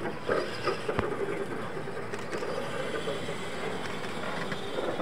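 Radio-controlled monster trucks running on a dirt track, their motors and drivetrains going steadily under the tyre noise, with one sharp knock about a second in as a truck lands off a ramp jump.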